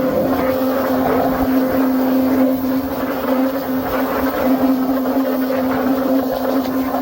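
A machine running steadily: a constant hum under an even rushing noise.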